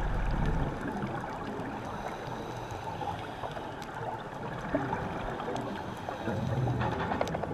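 Underwater sound picked up by a GoPro through its waterproof housing: a muffled, even rushing hiss of water with scattered faint clicks. A low rumble stops just under a second in.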